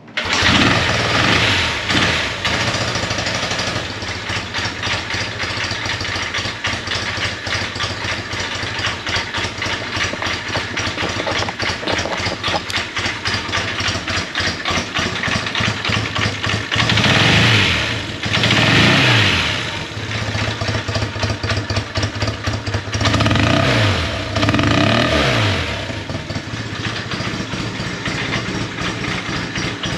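Yamaha TX750 air-cooled parallel-twin motorcycle engine catching right at the start and then idling with a fast, even pulse. It is blipped briefly just after it catches and revved up and back down four more times in the second half.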